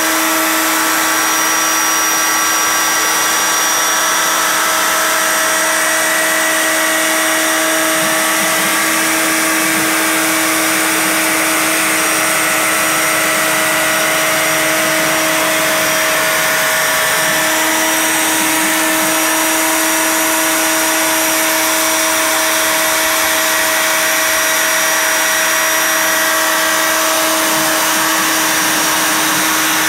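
CNC router spindle running steadily with a single-flute 1/8-inch end mill cutting quarter-inch black ABS plastic sheet: a steady whine of several held tones over a hiss of cutting, with a brief wobble in pitch a little past halfway.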